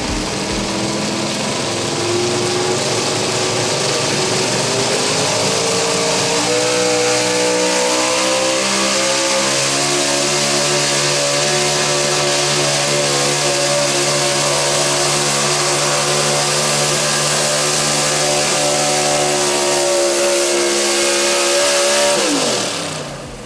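Gas stock pickup truck engine at full throttle pulling a weighted sled. The engine pitch climbs over the first several seconds, holds high and steady, then drops off sharply near the end as the throttle is released and the pull ends.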